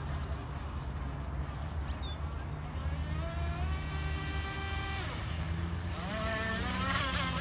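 Brushless electric motor of a Pro Boat Miss Geico 17-inch RC race boat running at speed on 3S power, a whine that slowly rises in pitch and then cuts off suddenly about five seconds in, over a steady low rumble. A wavering, pitch-bending whine follows near the end.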